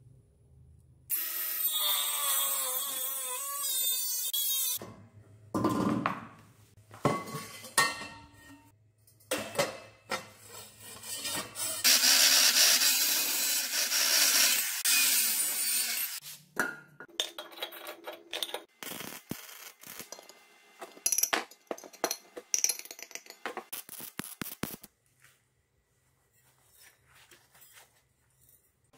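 Workshop metalwork: two loud sustained bursts of a power tool, the first starting about a second in and the second near the middle, with scattered knocks and clinks of metal parts between them.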